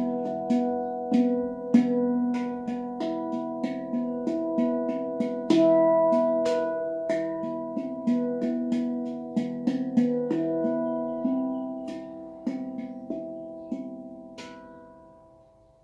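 Handpan played by hand: a tune of struck, ringing steel notes that thins out near the end, with a last note about a second before the close left to ring and die away.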